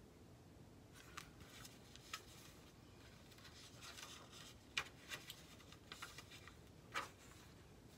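Faint paper rustling and soft clicks as the pages of a picture book are handled and turned, with two sharper clicks, the second near the end.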